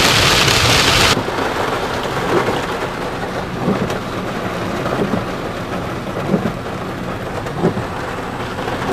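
Heavy rain pounding on a car during a severe thunderstorm, cutting off abruptly about a second in to lighter rain pattering on the car and windshield. Under the lighter rain, the windshield wipers give a soft thump about every second and a half.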